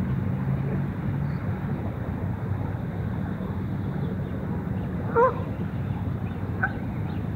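A Canada goose gives one short honk about five seconds in, then a fainter call over a second later, over a steady low hum.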